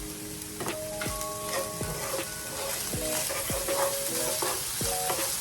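Ground meat and chopped onions sautéing in a pot, sizzling steadily while a spoon stirs and scrapes them, with several sharp knocks of the spoon against the pot.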